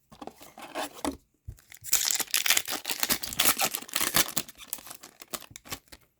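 A hockey card pack wrapper being torn open and crinkled: faint rustling at first, then a loud crackling tear about two seconds in that lasts a couple of seconds and thins out into scattered crinkles.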